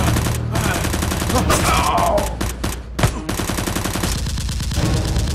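Edited-in gunfire sound effects: rapid volleys of automatic-weapon shots, with one sharper, louder shot about three seconds in.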